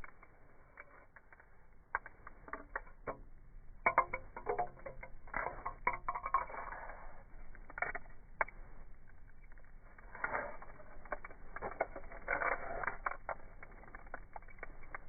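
Faint, scattered clicks, taps and scratching, in clusters about four seconds in and again about ten seconds in.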